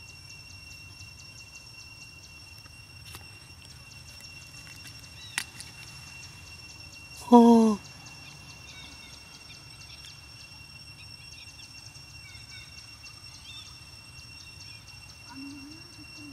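Steady high ringing and fast fine ticking run in the background. There is one sharp click about five seconds in, and a short, loud voiced cry with a wavering, stepping pitch lasts about half a second, about seven seconds in.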